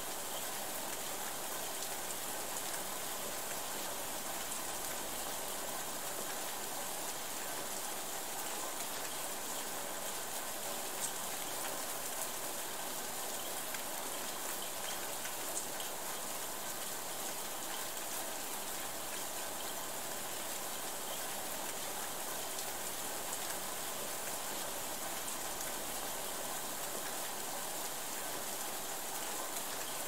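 Steady, even rain falling on leaves and a water surface, with a few slightly louder single drops standing out.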